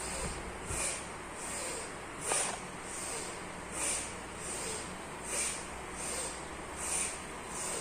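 A woman's deep, forceful breathing through the nose in bhastrika pranayama, in and out in a steady rhythm. There is about one full breath every one and a half seconds, one half of each breath louder and sharper than the other.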